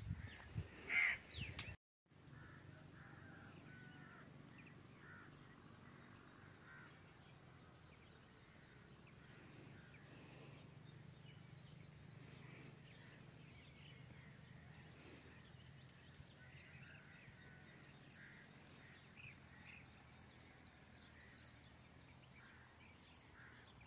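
A crow caws a few times in the first two seconds; after an abrupt cut the rest is faint open-field ambience, a steady low hum with scattered faint bird chirps.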